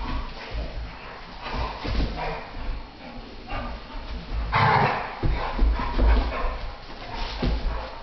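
Two pit bulls play-fighting, making scattered dog noises, with one louder outburst about four and a half seconds in.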